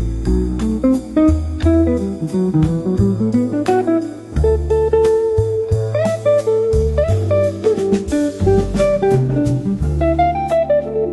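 Background music: a plucked guitar playing a melody over a bass line, in a jazzy style.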